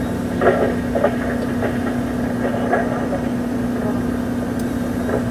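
Kato MR-350R rough-terrain crane's diesel engine running steadily, heard from inside the operator's cab as a constant hum.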